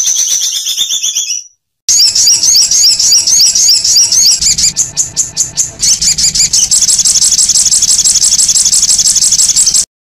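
Songbird song of the rough, long-burst 'tembakan' kind used as masteran tutoring recordings for caged songbirds: a short phrase, a brief break, then a long run of fast, high, repeated notes. The recording cuts off abruptly just before the end.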